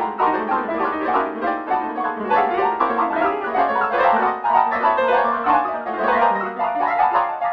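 MIDI music played with a synthesized piano sound, a busy unbroken stream of quick notes.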